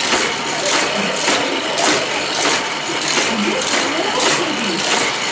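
Motorized toy car race track with four loops running steadily, whirring, with a regular whoosh-click nearly twice a second as the boosters send cars around the loops. A small child's voice babbles faintly in the middle.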